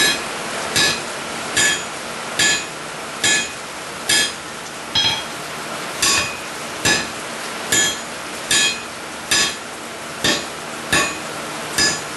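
Blacksmith's hand hammer striking steel in a steady rhythm, a little over one blow a second, each blow a sharp ringing clang. One blow about 5 s in is lighter.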